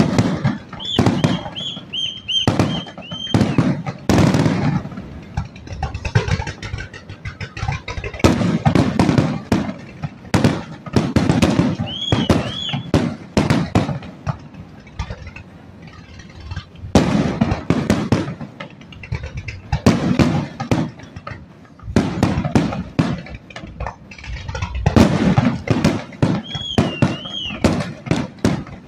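Fireworks display: aerial shells bursting with sharp bangs and crackling, in dense volleys with short lulls between. A few short high whistles rise and fall in pitch among the bangs.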